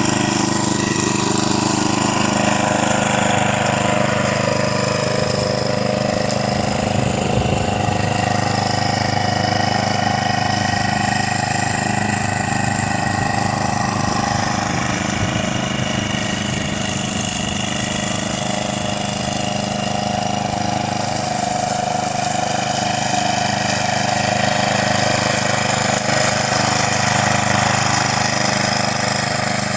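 Gasoline walk-behind lawn mower engine running steadily while the mower is pushed back and forth cutting grass, its pitch shifting only slightly.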